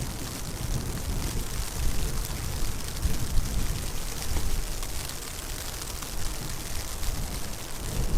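Strong wind gusting in a snowstorm, buffeting the microphone with an uneven low rumble under a steady hiss.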